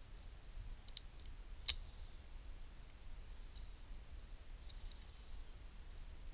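Small, sharp clicks of the plastic parts of a laptop's screen assembly being handled and pried at by hand. There are a handful of them, bunched around the first two seconds, with the loudest about a second and a half in, and a last pair near the end.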